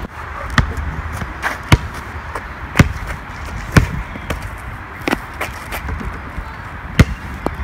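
A basketball bouncing on an asphalt court: single sharp thuds at irregular gaps of about a second, the loudest about three seconds in, one near four seconds and one about seven seconds in.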